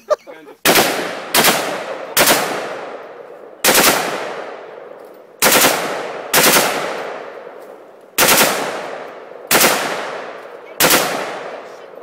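AK-pattern rifle fired shot by shot, about ten single shots spaced unevenly from about half a second to two seconds apart. Each shot is a sharp crack with a long echoing decay.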